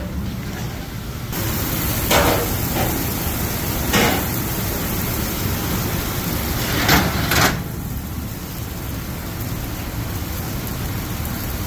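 Steady noise of a commercial kitchen with ovens and ventilation running, with a higher hiss coming in about a second in. Over it come four knocks: about two seconds in, about four seconds in, and a close pair about seven seconds in.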